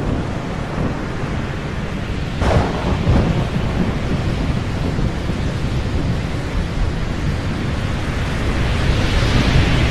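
Thunder rumbling over a steady rain hiss, with a sharper crack about two and a half seconds in and the rumble building toward the end.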